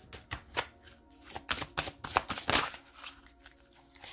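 Oracle cards being shuffled by hand: a run of quick papery flicks and taps, loudest about two and a half seconds in, then thinning out.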